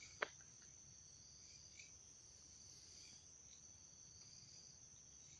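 Crickets chirring steadily and faintly, with one sharp click a moment in.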